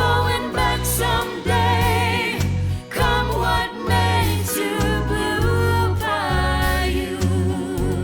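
A band playing a song with a woman singing lead over bass and drums.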